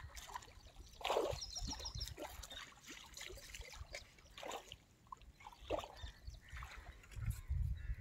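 A hooked tilapia splashing and thrashing at the water's surface as it is reeled in to the bank. A quick run of high ticks comes about a second and a half in, and low thumps near the end.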